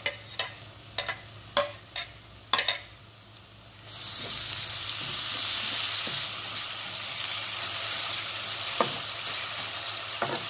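A spoon taps sharply several times as ground green chilli paste is knocked off a plate into a frying pan. About four seconds in, a loud sizzle starts as the paste is stirred into the hot oil with browned onions and garlic, and keeps frying steadily under the spatula.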